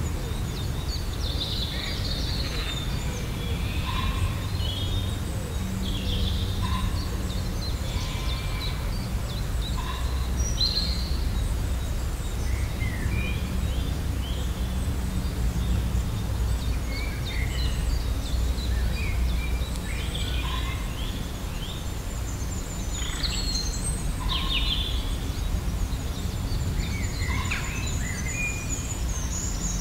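Several wild birds singing and calling in spring woodland, a scatter of short chirps, whistled notes and trills, over a steady low rumble.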